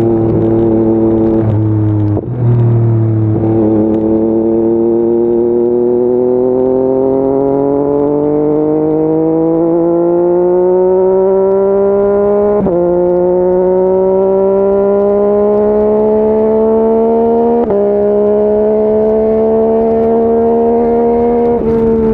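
Yamaha MT-09 SP's 890 cc inline-three engine pulling under riding load, its pitch climbing steadily as the bike gathers speed. The pitch drops sharply at two upshifts, a little past halfway and again about three-quarters of the way through, then climbs again.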